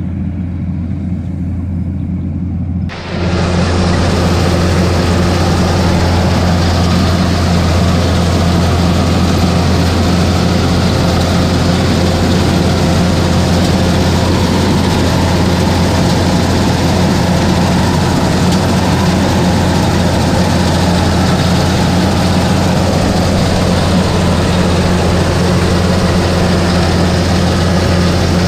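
Kubota DC-105X combine harvester running steadily as it harvests rice, with a constant low engine hum. About three seconds in the sound steps up suddenly, louder and fuller with a dense machine noise, heard close up from the driver's seat.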